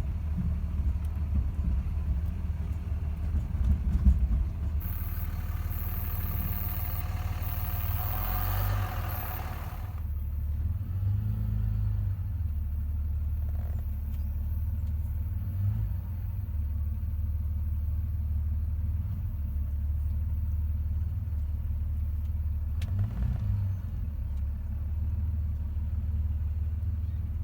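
Vehicle engine running steadily while driving with a trailer in tow: a continuous low rumble. A higher, harsher noise joins it for a few seconds, from about five to ten seconds in.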